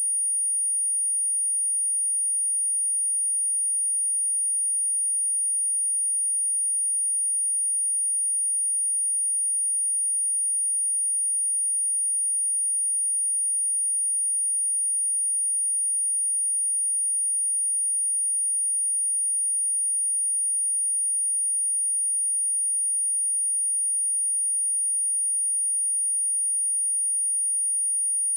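A continuous, steady pure sine-wave test tone at 9555 Hz, a single high-pitched whistle-like tone held at constant level, used to test speakers and vibrate water and dust out of them.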